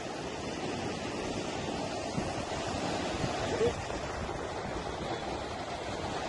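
Muddy floodwater rushing and churning in a steady wash, with a short pitched sound about three and a half seconds in.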